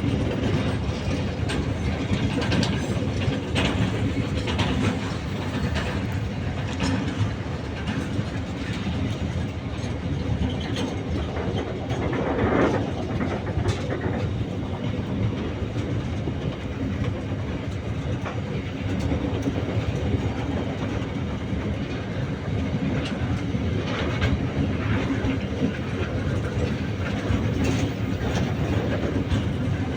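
Indian Railways freight train of BOXN open wagons rolling on the track, a steady rumble with wheels clattering over the rail joints.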